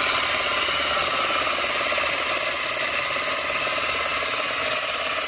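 Ryobi cordless hedge trimmer running steadily, its motor and reciprocating blades working as they are pushed into a stiff, prickly shrub.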